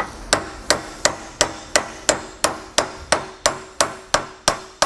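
Small hammer tapping a new U-joint bearing cap into a driveshaft yoke, steady light taps about three a second, each with a short metallic ring, seating the cap over its needle roller bearings.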